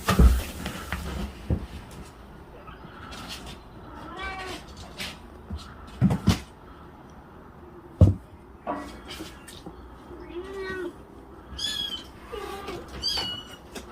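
Russian Blue kittens mewing, a scattering of short high-pitched cries, with a few sharp thumps, the loudest about eight seconds in.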